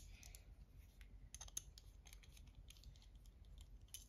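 Faint, scattered light clicks and taps of small knife parts and screws being handled and set down, with a sharper click at the very start.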